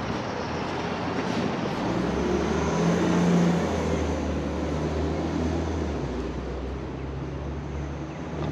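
Street traffic with a low engine hum from a heavy vehicle, swelling to its loudest about three seconds in and then running on more quietly.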